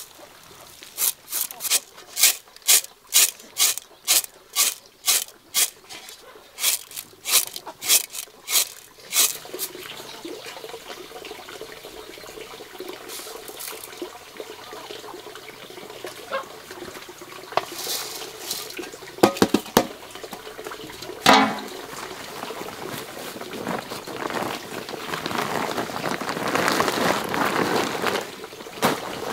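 Dried rice grain being scooped and swept by hand on a sheet: a quick run of sharp rustling scrapes, about two a second, for the first nine seconds, then a few scattered scrapes and, near the end, a longer rustle as grain goes into a plastic sack. A bamboo-pipe water spout trickles steadily underneath.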